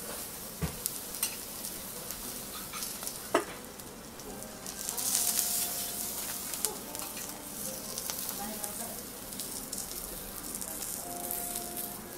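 Food sizzling on a hot teppanyaki steel griddle where an okonomiyaki is frying, with a few sharp clinks of metal spatulas in the first few seconds. The sizzle swells about five seconds in.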